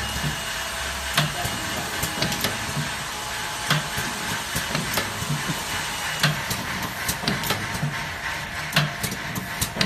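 Automatic blister packing machine running in its cycle: a sharp clack about every second and a quarter, with lighter clicks and low thuds between, over a steady mechanical hiss.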